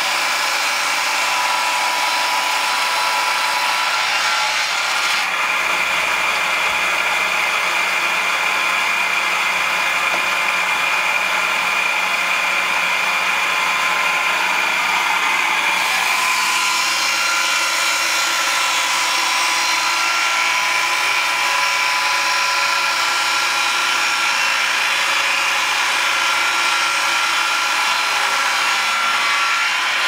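Homemade multi-blade circular sawmill running and ripping a log lengthwise: the steady loud whine of the spinning saw blades mixed with the noise of cutting wood. The tone shifts abruptly about five and sixteen seconds in.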